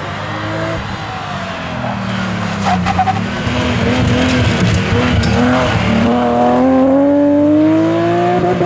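Rally car engine under hard driving: the note drops as it comes off the throttle, with a few short cracks about three seconds in, then climbs steadily as it accelerates hard through the rest.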